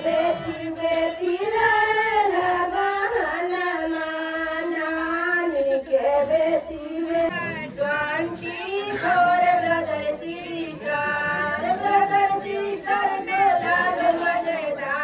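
Female voices singing a slow song with long held notes that glide up and down.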